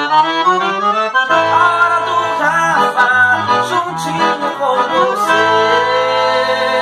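A Roland digital accordion playing held chords under a moving melody, the chords changing about every second.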